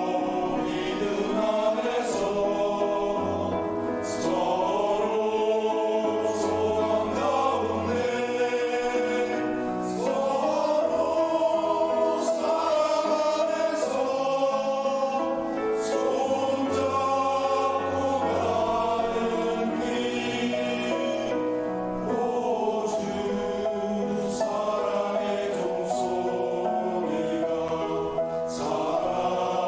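Church choir singing a slow hymn in several-part harmony, with long held notes.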